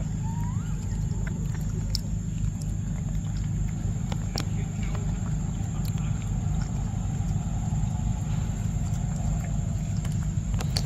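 Macaque biting and chewing a large yellow fruit close to the microphone, with scattered sharp clicks from its bites, over a steady low rumble and a thin high steady tone.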